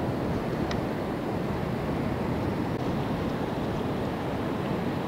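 Steady wind with surf breaking in the distance, the wind rumbling on the microphone.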